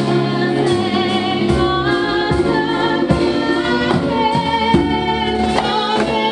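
A woman singing lead over a band playing Balkan–Caribbean jazz fusion, with bass notes under the voice.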